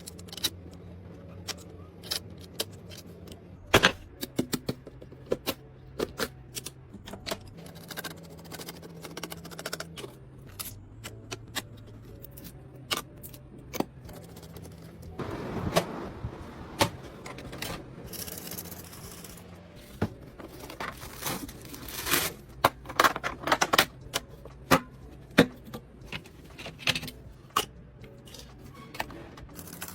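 Irregular clicks, taps and scrapes of computer parts being handled and fitted, over quiet background music.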